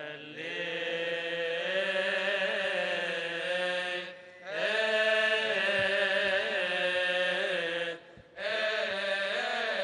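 A solo male voice singing a long, drawn-out melismatic Coptic liturgical chant in sustained, wavering notes, with two short breaks for breath about four and eight seconds in.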